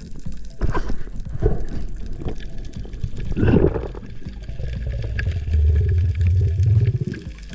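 Water gurgling and bubbling around an underwater camera, with a constant low rumble and irregular bursts of bubbles, the strongest about three and a half seconds in.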